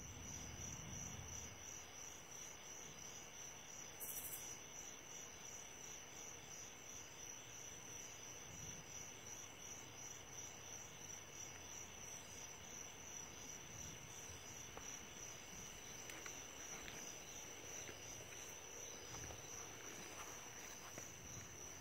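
Faint, steady high trill of crickets chirping, with a short click about four seconds in.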